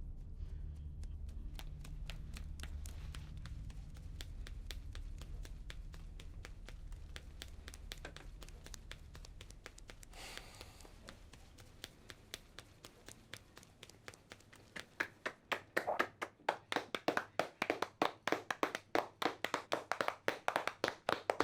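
A low, sustained musical drone fades away while quick, sharp taps build beneath it. The taps grow loud and regular in the last several seconds, at about four a second, like a percussive rhythm starting up.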